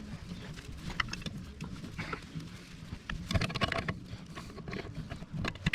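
Scattered light clicks and knocks of metal parts and hand tools being handled, with a quick run of rattling taps about three seconds in, as the brass replacement fill tube is fitted to the plow's hydraulic oil reservoir.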